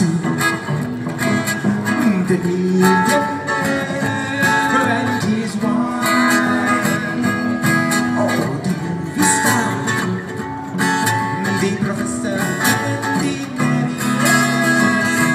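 Live band playing a guitar-led jam through the PA.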